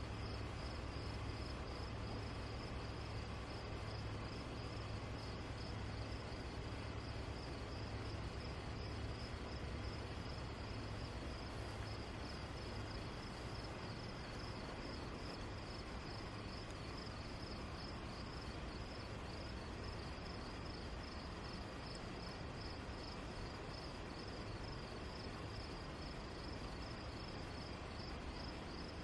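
Crickets chirping steadily in an even, rapid rhythm, over a low steady hum that eases a little about halfway through.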